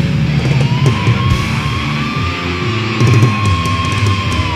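Thrash metal recording with distorted electric guitars and fast drums. One long high note enters about a second in, is held, and drops away near the end.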